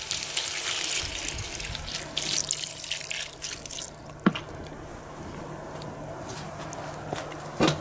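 Water poured from a plastic bottle into a hanging stainless-steel cauldron of frying vegetables, splashing for about four seconds and then stopping. After that a quieter steady hiss remains, with one sharp click.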